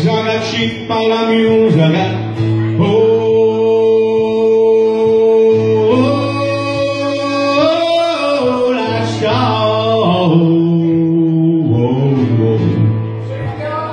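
Live acoustic blues band playing: a man sings long held, bending notes over strummed acoustic guitar and a steady low note.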